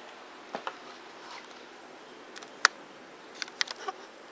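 A few sharp clicks and knocks of handling: one about half a second in, a louder single click about two and a half seconds in, and a quick run of clicks near the end.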